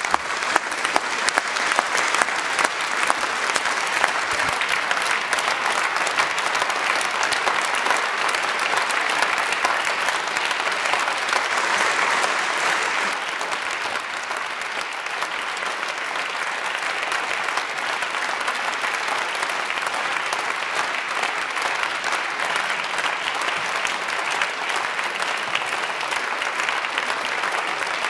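Sustained applause from a chamber full of members of parliament clapping, dense and steady, at its loudest about twelve seconds in and easing slightly after.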